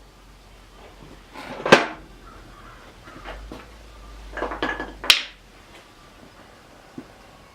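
Metal hand tools and lathe parts clanking as they are handled: one sharp clank just under two seconds in, then a cluster of knocks and clinks that ends in a loud clank around five seconds in.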